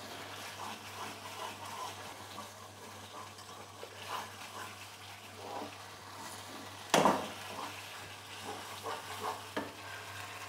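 Thick almond halwa sizzling gently in ghee in a non-stick pan as it is stirred with a spatula. There is one sharp knock about seven seconds in.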